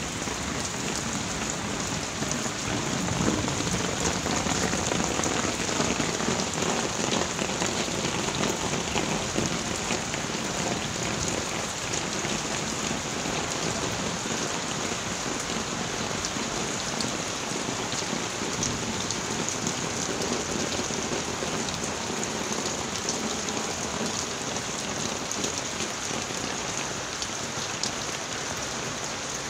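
Heavy rain pelting the water surface of small plastic-basin ponds and the ground around them: a dense, steady patter of drops that eases slightly after about ten seconds.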